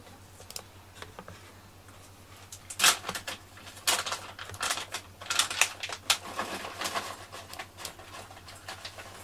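Irregular clicks, taps and light knocks of things being handled close to the microphone, a dozen or so, coming thickest from about three seconds in.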